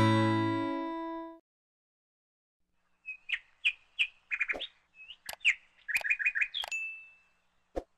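Bird chirping in a series of short high calls, some in quick runs, ending in a brief held whistle. A few sharp clicks fall among the calls.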